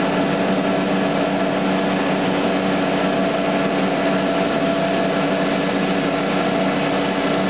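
Explosion-proof soil vapor extraction blower running steadily under vacuum, a constant hum with several steady tones.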